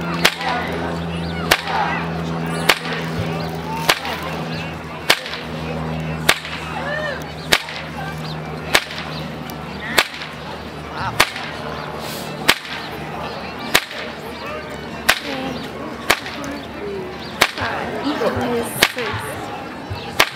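Whip cracking at a steady pace, one sharp crack about every 1.2 seconds, each crack cutting a flower held in a performer's mouth.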